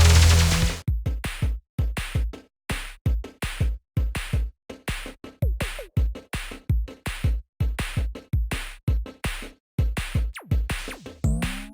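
Electronic background music with a drum-machine beat. A full, dense passage breaks off about a second in, giving way to short stabbing hits with deep bass thumps, separated by brief silences.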